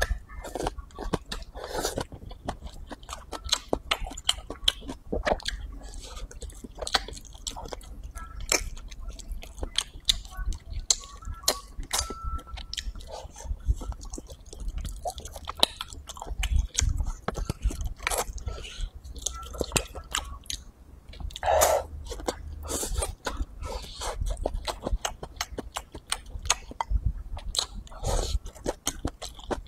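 A person chewing and biting mouthfuls of rice, braised pork and green peppers eaten with chopsticks. The sound is a dense, irregular run of sharp mouth and teeth clicks, with a louder burst about 22 seconds in.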